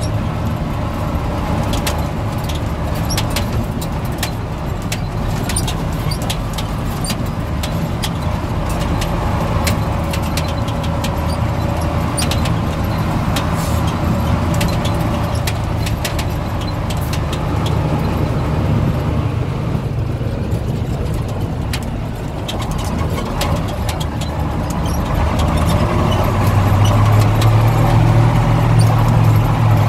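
Vehicle engine running and the body rattling while driving slowly over a rough dirt track, heard from inside the cab, with frequent small knocks and clicks from the bumpy ride. The engine grows louder and deeper about four seconds before the end.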